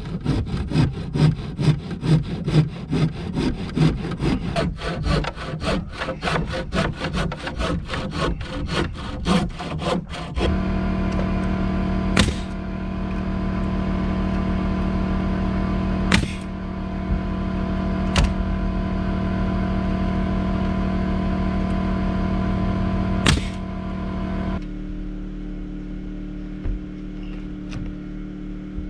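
A handsaw cutting a 2x4 stud with quick back-and-forth strokes. About ten seconds in, the sawing gives way to a pneumatic framing nailer firing four single shots over a steady machine hum, which drops lower near the end.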